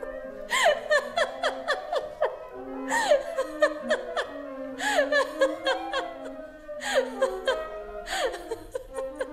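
A girl's high-pitched laughter in about five giggling bursts, each a quick run of falling syllables, over held music notes.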